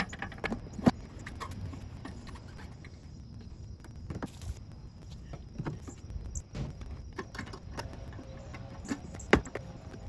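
Hard saddlebag of a 2020 Harley-Davidson Electra Glide being lifted and seated back onto its docking hardware: scattered clicks, knocks and rattles. There is a sharp knock about a second in, and the loudest knock comes near the end.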